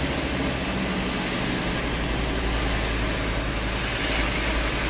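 Steady engine and road noise of a Volkswagen camper van driving slowly on a wet street, heard from inside the cab.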